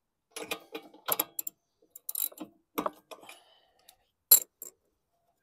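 Ratchet and spark-plug socket being worked and handled: irregular ratchet clicks and short metal rattles, with one sharp clack near the end.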